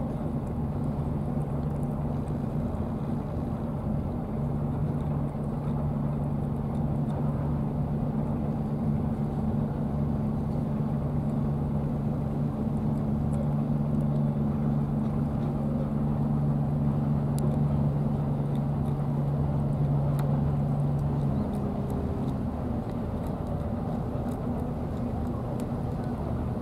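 An engine running steadily with a low hum, which stops about three-quarters of the way through.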